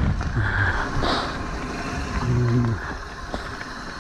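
Mountain bike rolling fast down a dirt singletrack: tyre noise and wind rushing over the camera microphone, with a short low hum a little past halfway.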